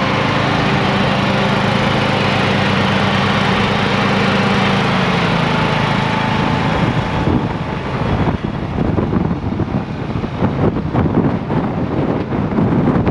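Kubota T1560 riding lawn mower's engine running steadily as it drives. After about seven seconds the engine hum drops away and irregular rustling, gusty noise takes over.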